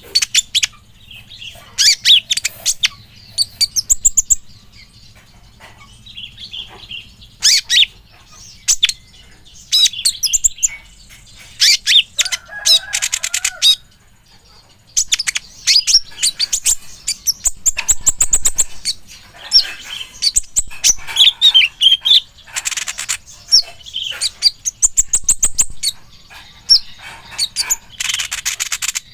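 Kolibri ninja sunbird singing: high, rapid chirps and fast trills in repeated bursts with short pauses between them.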